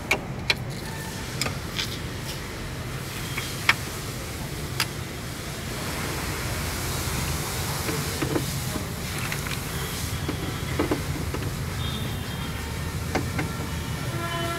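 Scattered clicks and knocks of hand work on a Tata Tigor's opened door shell and window mechanism, with rustling of the door's plastic vapour-barrier sheet, over a steady low hum.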